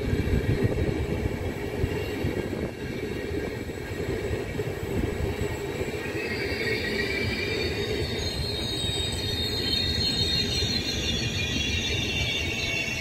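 Double-deck regional train rolling away along the track with a steady low rumble of wheels on rail. From about halfway through, a high, wavering metallic wheel squeal in several pitches rises over the rumble.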